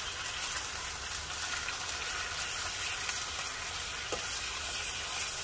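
Thin slices of beer-marinated beef sizzling steadily in a large frying pan with marinade liquid around them, with faint crackles throughout.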